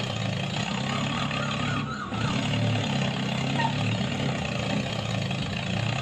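Small tractor's engine running steadily at an even speed.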